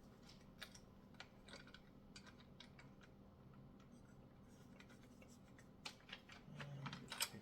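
Scattered light clicks and taps from the bike repair stand's parts being handled and fitted together by hand, over near silence.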